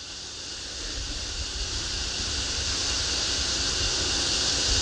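Wind rushing over an outdoor microphone: a steady hiss with a low rumble, growing gradually louder.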